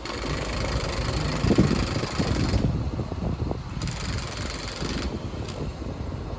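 An engine running with a low rumble and scattered knocks. A hiss comes in over it twice, then cuts off.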